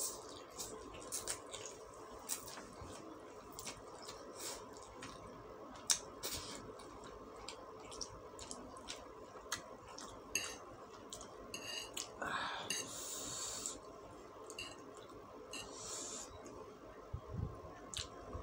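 Close-up eating sounds: chewing mouthfuls of fried noodles and breathing, with scattered sharp clicks of a metal fork and spoon against a ceramic plate. A faint steady hum runs underneath.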